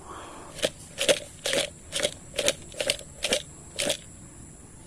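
Footsteps crunching on dry leaf litter and twigs, about two steps a second.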